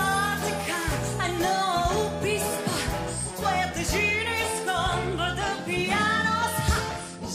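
A woman singing a jazzy show tune into a microphone over band accompaniment, her held notes wavering with vibrato above a steady bass line and drum hits.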